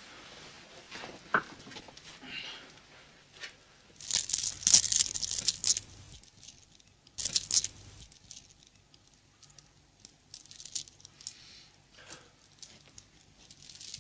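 Dry rustling and crinkling, loudest in two bursts about four and seven seconds in, with scattered small clicks and rustles between.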